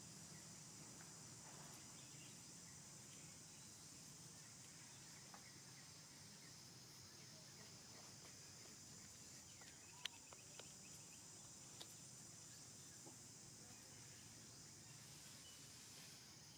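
Faint outdoor ambience: a steady high-pitched insect chorus, with a few soft isolated clicks, the clearest about ten seconds in.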